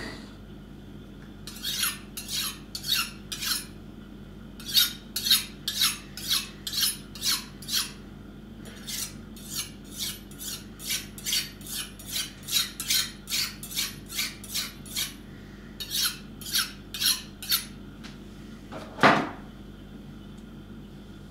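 A kitchen knife scraping something held in the hand, in short strokes about two a second, coming in several runs with brief pauses. Near the end there is one louder knock.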